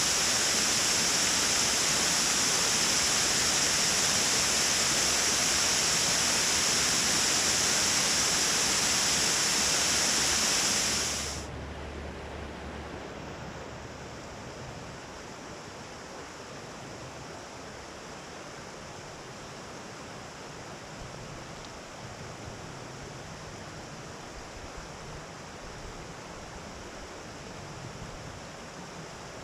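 Water rushing steadily over a small mill dam, loud and hissing, then dropping sharply to a quieter, softer rush about a third of the way in.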